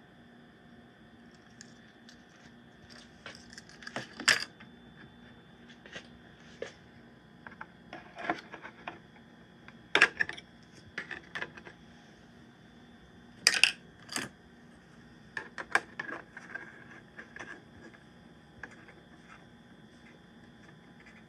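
Scattered sharp clicks and knocks of hands handling a hard plastic toy vehicle, the loudest about four, ten and fourteen seconds in, over a faint steady hum.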